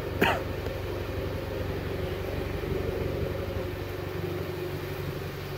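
Subaru WRX's turbocharged direct-injection flat-four engine idling steadily once warmed up, with a brief knock just after the start.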